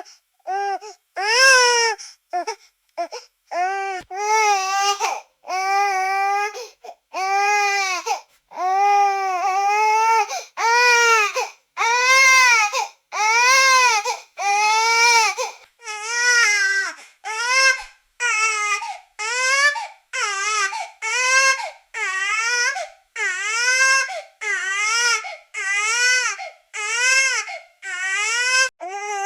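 A baby crying in a tantrum: a steady run of loud, arching wails, each about a second long, broken by short gasps for breath.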